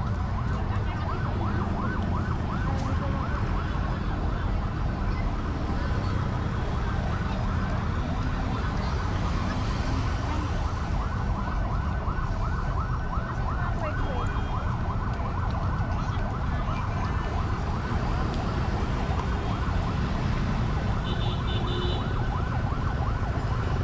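An electronic siren yelping, a fast rising-and-falling wail repeated over and over, above the steady rumble of street traffic.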